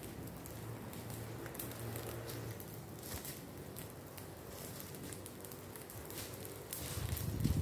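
A burning pile of dry leaves and brush crackling, with scattered small pops. About seven seconds in a louder low rumble rises.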